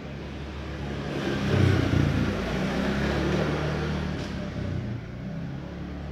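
A motor vehicle's engine passing by, growing louder to a peak about two seconds in, then slowly fading.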